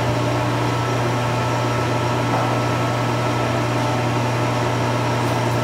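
Chin Hung lathe's drive motor running steadily, turning the V-belts and the pulley of the home-built air-operated clutch; an even, unchanging hum.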